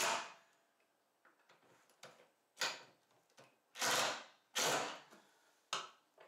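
Cordless drill driving screws through the mounting plate of a hand-forged steel chest handle into the wooden side of the chest, in about five short bursts.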